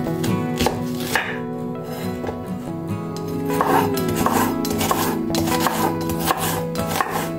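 Chef's knife cutting an onion on a wooden cutting board: a few single strikes of the blade on the board, then a faster run of chops, about two a second, from about halfway, over background music.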